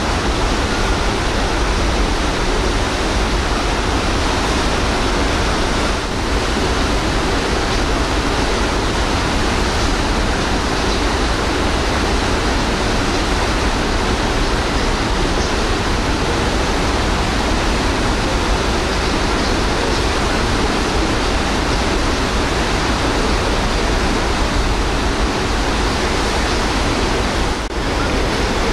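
Steady rushing of sea water churned up in a passenger ferry's wake, with a low rumble underneath. The noise dips briefly about six seconds in and again near the end.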